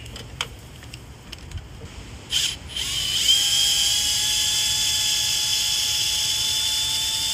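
A cordless drill turning a thread tap in a stripped head-bolt hole of a Chevy LS engine block, cleaning out the last of the new thread. It gives a short blip about two seconds in, then runs steadily for about five seconds with a whine that rises slightly in pitch.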